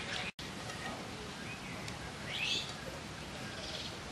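Steady sizzle of onion slices frying in hot oil in an iron pan, with a bird chirping a few times, loudest about halfway through.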